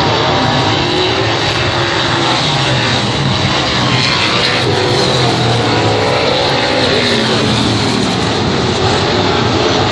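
Race car engines running hard, their pitch rising and falling.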